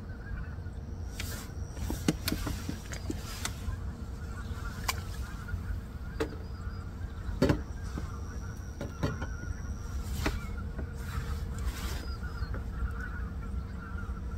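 A flock of wild geese honking, a continuous chorus of many calls blending together. Several sharp clicks and knocks stand out, the loudest about halfway through.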